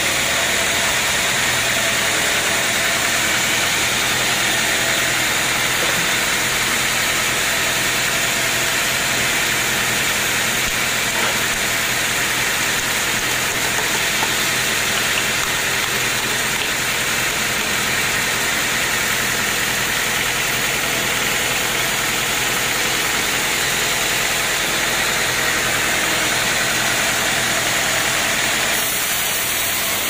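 Band sawmill running steadily: a continuous machine hum with the even hiss of the band saw blade and feed through the log.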